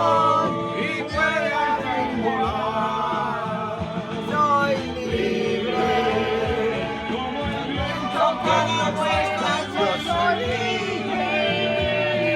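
A song with singing voices over a band accompaniment.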